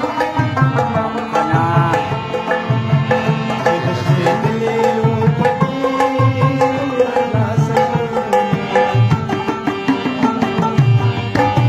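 Harmonium playing a melody over a steady tabla rhythm, an instrumental passage of a Pashto ghazal with no singing.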